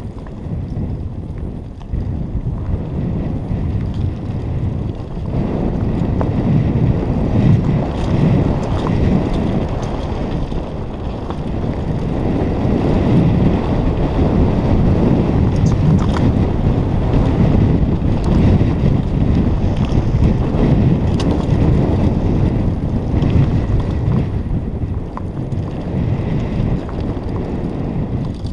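Wind buffeting the microphone of a mountain biker's camera during a fast descent on a dirt trail, mixed with the rumble of the tyres over the ground and a few light rattles from the bike. The rushing noise grows louder about five seconds in as the speed builds.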